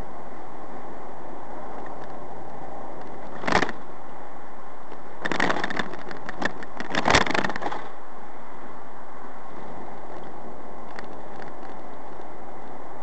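Steady road and engine noise of a car driving at speed, heard from inside the cabin. A short clatter comes about three and a half seconds in, and a longer run of knocking and rattling follows from about five to eight seconds in.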